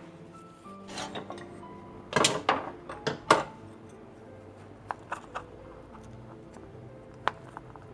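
Soft background music, with a series of sharp knocks and clacks of hard objects being handled and set down: a cluster of loud ones between about two and three and a half seconds in, then a few lighter taps.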